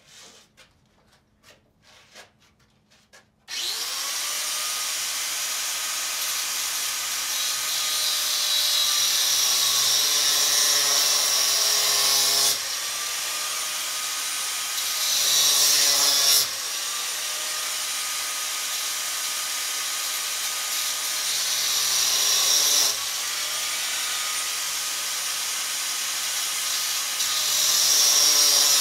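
Electric power cutting tool cutting metal: a few light knocks, then the motor starts with a rising whine about three and a half seconds in and runs steadily. Four times the sound turns louder and harsher as the wheel bites into the metal, and the motor's pitch climbs back each time the cut eases.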